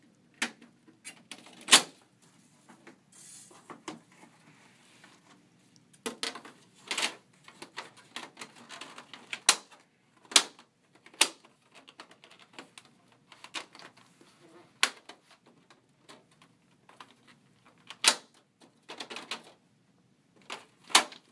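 Irregularly spaced sharp clicks and snaps of a plastic snap-in decorative window insert and its frame on a garage door section, as it is worked out of and back into place by hand.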